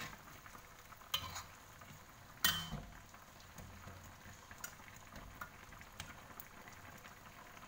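Chicken feet stew simmering in a black wok, stirred with a metal spatula; the spatula scrapes against the wok about a second in and again at two and a half seconds, with lighter taps after.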